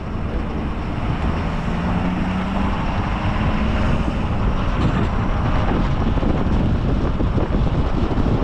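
Vehicle under way, heard from a camera mounted on its roof: a steady rush of wind and road noise over a low engine rumble.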